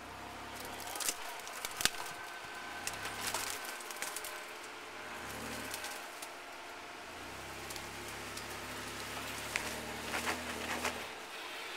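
A 4x4 SUV's engine running at low revs as it crawls over boulders, swelling in two short revs and then holding a steady low note. Sharp clicks and crackles of tyres and underbody on rock come through, loudest about two seconds in and again near the end.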